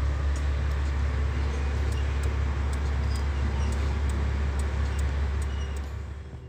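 Volvo truck's diesel engine idling: a steady low hum with a faint ticking over it. The sound fades out near the end.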